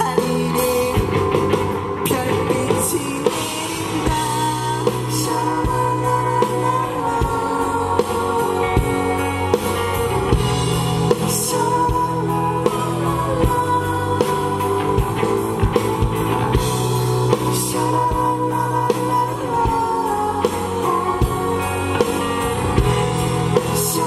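Live rock band playing loudly: a singer's voice through a microphone and PA over electric bass, guitar and a drum kit, with several cymbal crashes.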